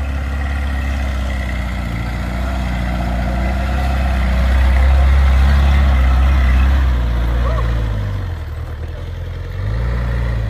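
Off-road jeep engine running with a low, steady note. It grows louder towards the middle, eases off about eight seconds in, then picks up again briefly before cutting off.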